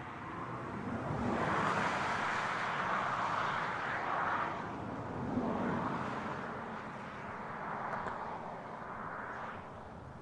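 Vehicle passing: a rushing mix of engine and tyre noise that builds about two seconds in, then rises and falls several times before easing off near the end.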